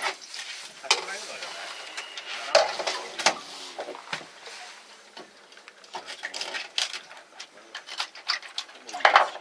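Irregular sharp clicks and knocks of things being handled on a hard surface, with a cluster of louder knocks near the end, under faint voices.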